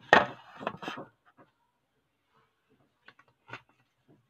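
A brief loud burst of noise in the first second, then a few faint plastic clicks about three seconds in as the personal blender's bottle is set onto its motor base. The blender motor is not yet running.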